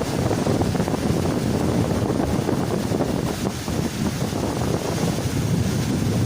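Wind buffeting the microphone in a low, uneven rumble.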